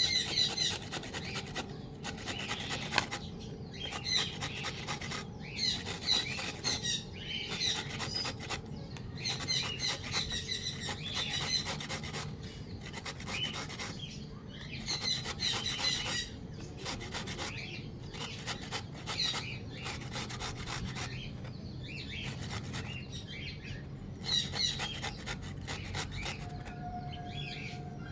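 A carrot being grated on a small hand-held metal grater: runs of quick rasping strokes with short pauses between them. Birds chirp in the background.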